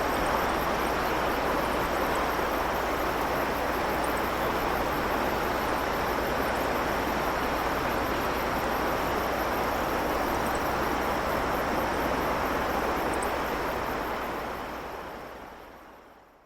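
Shallow stream babbling over stones: a steady, even rush of flowing water that fades out near the end.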